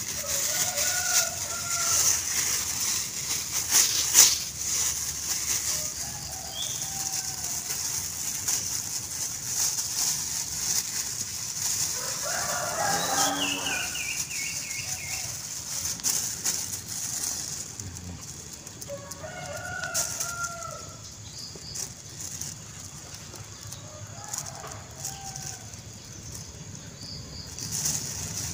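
Thin plastic bag crinkling and rustling in the hands as it is slipped over and wrapped around rose apple flower clusters, with sharp crackles now and then. Chickens call several times, with one longer call about midway.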